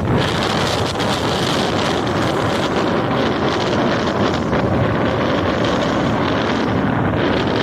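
Waves of a rough sea breaking and churning, with strong wind buffeting the microphone, a steady, dense roar.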